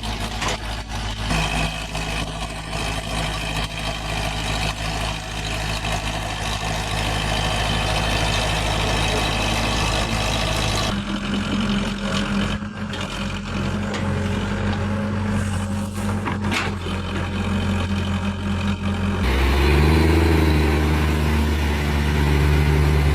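Excavator diesel engines running steadily. The engine sound changes abruptly twice.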